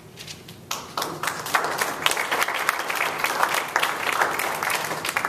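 Audience applauding, starting within the first second: a dense patter of many hands clapping.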